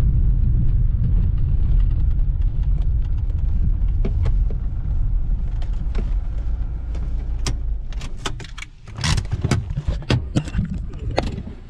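Kia car driving on a dirt road, heard from inside the cabin as a steady low rumble of engine and tyres. The rumble fades about eight seconds in as the car slows, and a series of sharp clicks and knocks follows.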